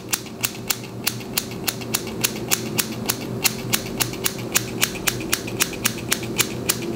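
Scissors snipping rapidly into the twisted ends of a curly wig, about four even snips a second, point-cutting the ends so they are not blunt.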